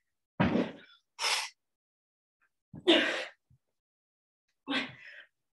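A woman's hard breathing from exertion during mountain climbers: four short, forceful exhales a second or two apart, one of them a sharp hiss.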